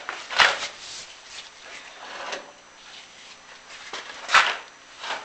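Chimney inspection camera scraping and knocking against the clay flue tiles as it is lowered down the flue. Two scrapes stand out as louder, about half a second in and near the end.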